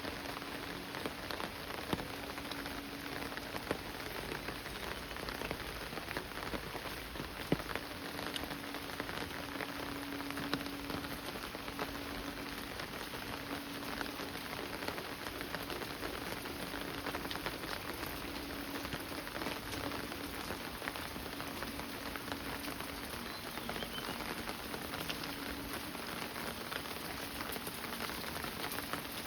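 Steady monsoon rain falling on surfaces, a dense patter of many small drops with a few louder single drips, and a faint low hum coming and going under it.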